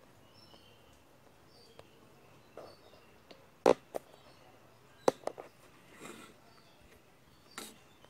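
A few sharp taps and clicks of multimeter probe tips against a washing machine control circuit board, the loudest two about a third and halfway through, over quiet room tone.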